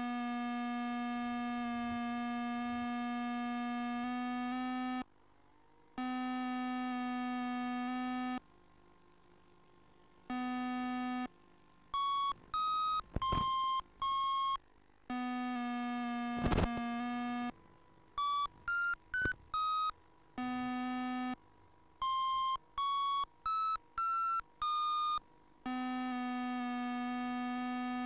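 Electronic beeping tones: long, steady low notes lasting a few seconds alternate with gaps and with quick runs of short, higher beeps, some of which step up in pitch. Two sharp clicks, one a little past the middle.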